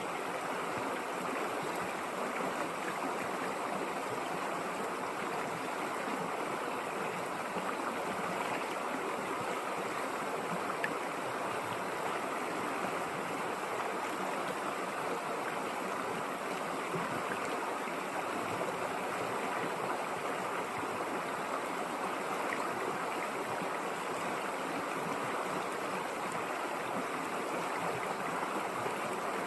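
A river flowing, a steady rushing of water over rocks with no change.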